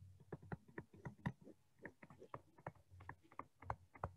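Faint, irregular light clicks and taps, several a second, from handwriting words on a digital whiteboard with a stylus or pointing device.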